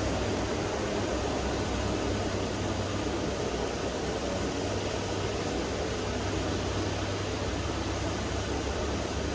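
Calm sea waves washing onto a beach, a steady wash of noise, with wind rumbling on the microphone.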